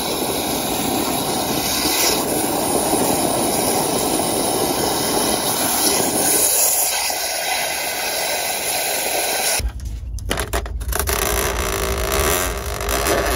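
Drain-cleaning machine running a 5/8-inch cable through a 2-inch kitchen drain line packed with hard grease, the cable turning in the pipe as greasy water pours out of the opened line. About ten seconds in the sound changes abruptly to a steadier low hum.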